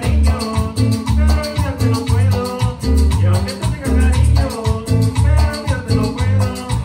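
Upbeat Latin dance music from a band: a bass line pulsing in short notes, melody lines on top and a fast, even ticking rhythm in the highs.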